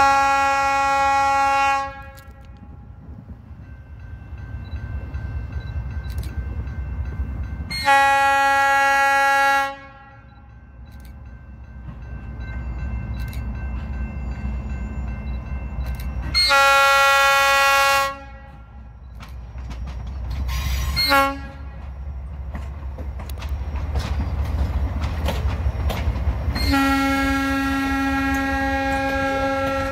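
Norfolk Southern diesel locomotive's air horn sounding long blasts, then a short one and a final long one, the long-long-short-long pattern of a grade-crossing signal. Between blasts the locomotive engines and wheels rumble, growing louder as the train comes closer.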